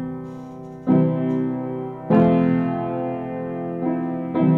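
Solo piano improvisation: slow, full chords struck about once a second, each left ringing and fading under the sustain before the next.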